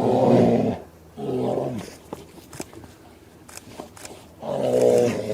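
Fighting bears roaring: three loud, deep, pitched roars, one at the start, a shorter one about a second and a half in, and another near the end. Faint scattered clicks fill the quieter stretch between them.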